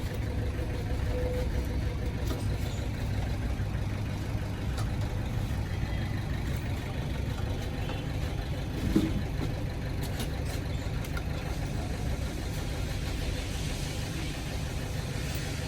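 Car engine idling steadily with a low rumble, with one brief clunk about nine seconds in.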